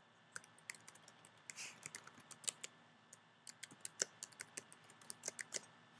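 Computer keyboard being typed on: a quick, uneven run of key clicks with a short pause about halfway through.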